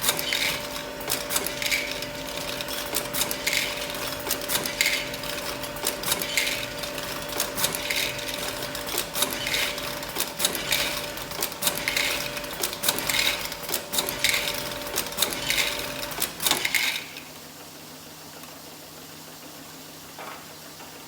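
Cremer CF1220 automatic tablet counter on a test run: its vibrating feed channels hum steadily while tablets rattle through, with repeated sharp bursts about once a second. The machine stops suddenly about 17 seconds in, leaving a faint low hum.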